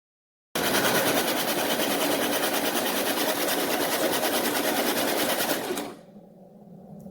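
Baratza Encore conical burr coffee grinder's motor running, starting abruptly about half a second in and stopping near the end, after which a faint low hum remains.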